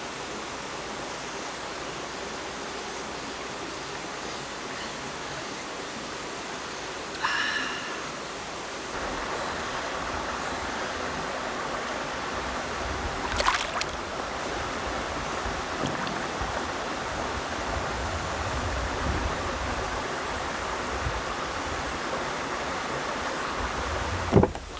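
Mountain valley stream flowing steadily, a little louder from about nine seconds in. A brief high squeak about seven seconds in, a sharp click about thirteen seconds in, and a thump near the end.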